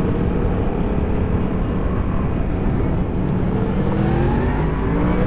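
Motorcycle engine running steadily while riding along, with wind and road noise over the microphone; about three to four seconds in, engine notes rise as the engine revs up.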